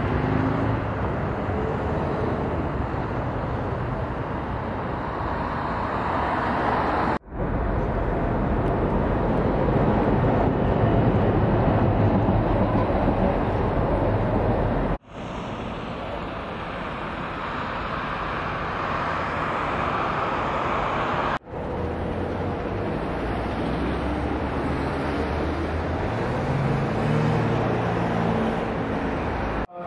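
Outdoor city ambience dominated by steady road traffic noise, with a low engine rumble from passing vehicles. The sound cuts off abruptly three times as one take gives way to the next.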